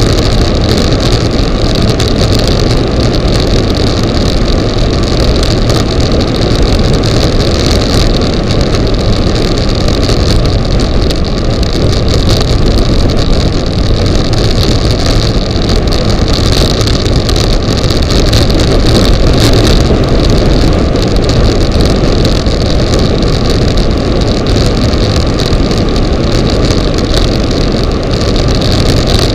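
Loud, steady wind rush on the microphone of a bicycle-mounted camera descending at speed.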